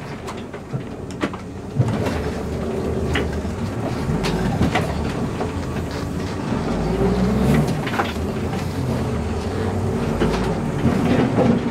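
Converted school bus's engine running as it backs up while turning, with knocks and rattles from the bus body. Near the end, a crunch as the reversing bus turns into the Jeep towed behind it and crumples the Jeep's front end.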